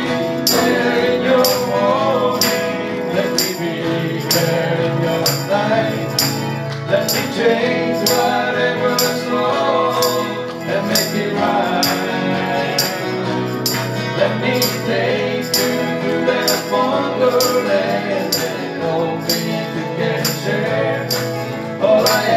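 Small live band playing an instrumental break in a country-pop song: guitars and keyboard carrying chords and a melody line, with a jingling percussion stroke keeping a steady beat about every three-quarters of a second.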